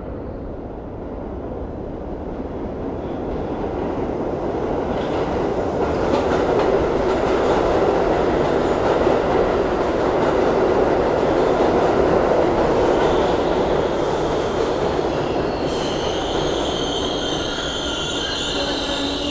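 R62A subway train pulling into the station: the rumble of its wheels on the rails swells as it comes in alongside the platform. In the last few seconds high wheel and brake squeals set in as it slows.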